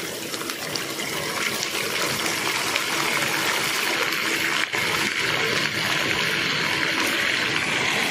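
Raw chicken pieces going into hot oil in an aluminium karahi, the oil sizzling hard and steadily as the chicken is par-fried. The sizzle builds over the first couple of seconds as more pieces go in, then holds.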